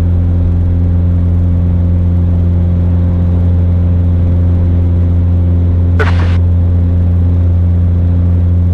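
Mooney M20J's 200 hp four-cylinder Lycoming IO-360 engine and propeller running at full takeoff power during the takeoff roll, a deep steady drone. A brief, sharper sound breaks in about six seconds in.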